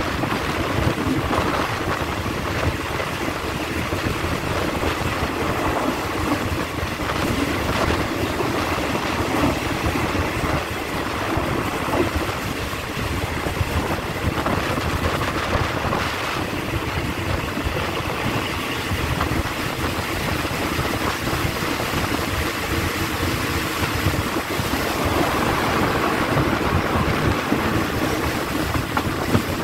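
Ordinary passenger train 255 running steadily along the track, with a continuous rumble of wheels and carriages and rushing wind at the open window.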